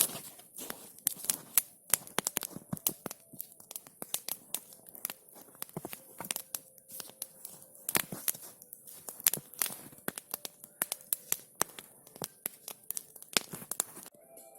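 Campfire crackling: dense, irregular sharp snaps and pops. Music comes in near the end.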